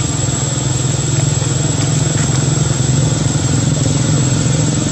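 A small engine running steadily at idle, a low, even drone with no change in speed.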